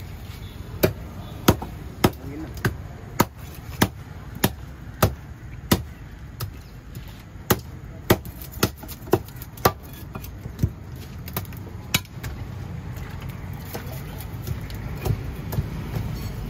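Large curved knife chopping through catla fish on a wooden log chopping block: a run of sharp chops about every half second, a short pause near the middle, then more chops ending about twelve seconds in.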